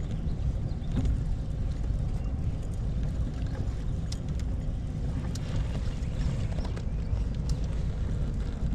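Steady low rumble aboard a fishing boat on the water, with a few faint clicks and knocks.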